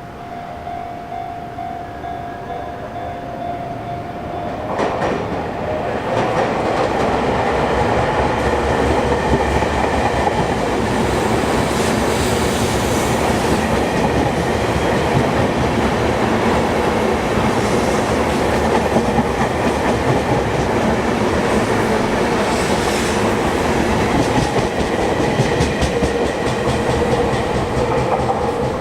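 Sotetsu Line electric train passing close by, its wheels clattering over the rail joints. A steady tone sounds over a softer rumble for the first few seconds; at about five seconds the train noise rises sharply and stays loud.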